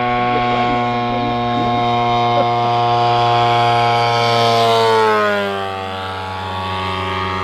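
The DA150 twin-cylinder gas engine of a giant-scale RC biplane running at high power in flight. Its note falls in pitch and level about five seconds in as the plane flies past.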